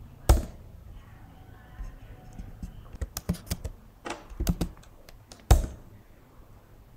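Keystrokes on a computer keyboard in short, irregular bursts, with a few sharper strikes standing out.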